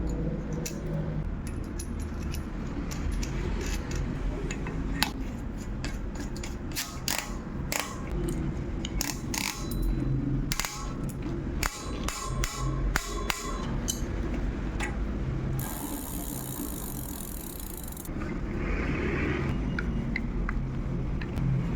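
Hand work on bicycle parts: a run of metallic clicks, knocks and rattles over a steady low rumble, with a hiss lasting about two seconds near the end.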